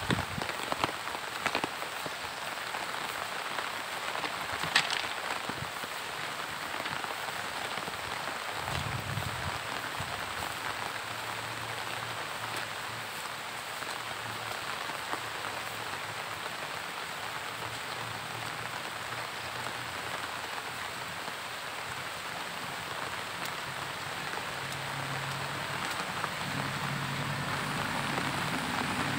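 Steady monsoon rain falling on leaves and grass, with a few sharp drop hits in the first seconds. From about a third of the way in, a faint low hum builds under the rain and grows louder near the end.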